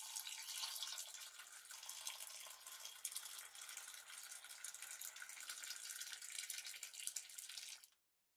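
A thin stream of water pouring steadily into a mug, stopping abruptly near the end.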